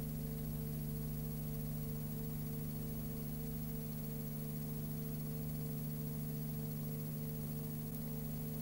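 Steady electrical hum under even hiss, with nothing else: the background noise of a silent Super 8 film transfer.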